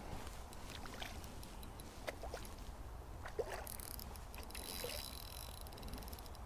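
Faint water sloshing and splashing, with scattered small clicks and knocks.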